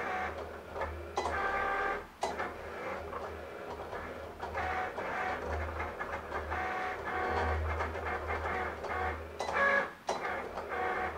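Cricut Explore cutting machine cutting adhesive vinyl: its motors whine at shifting pitches as the blade carriage and cutting mat move back and forth, with short pauses about two seconds in and again near the end.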